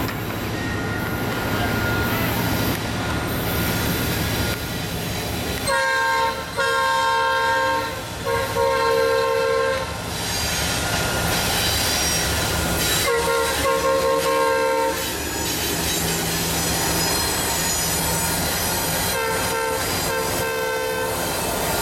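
Norfolk Southern diesel locomotives sounding a multi-chime air horn over the steady rumble of the approaching train. There is a short blast about six seconds in, then two long blasts, another long one a few seconds later, and two broken blasts near the end.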